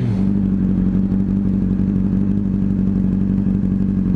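Honda CBR600RR motorcycle's inline-four engine running at a steady, unchanging pitch under the rider.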